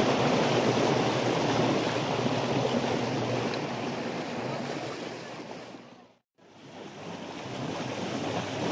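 Steady wind noise on the microphone over the wash of water around a boat. It fades out about six seconds in, breaks off briefly, and builds back up.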